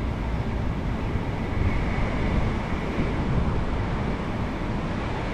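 Steady road-traffic noise from the overpass overhead, mixed with wind buffeting the microphone.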